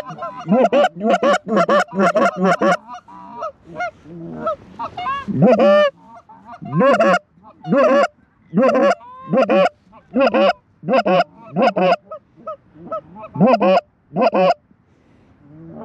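Goose honks and clucks in a rapid, loud series, about two calls a second, with a softer, more broken stretch a few seconds in.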